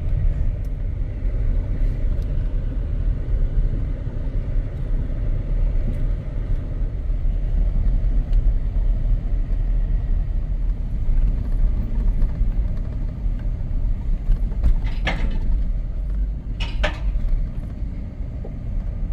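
Off-road vehicle driving down a dirt road, a steady low rumble of engine and tyres. Two short knocks or rattles come near the end.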